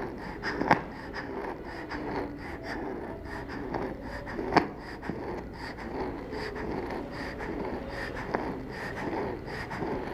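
A young child's breathing with a wheeze when breathing out, a whistling sound on each breath out, not the harsh sound on breathing in that marks stridor. Two sharp clicks stand out, about a second in and near the middle.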